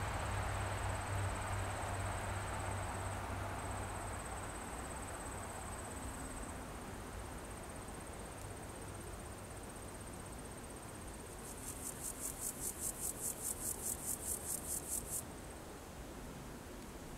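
Singing insects in the background: a steady, high-pitched trill, joined about two-thirds of the way in by a louder, high pulsing call of about four pulses a second that lasts a few seconds and stops abruptly. A low hum fades out over the first few seconds.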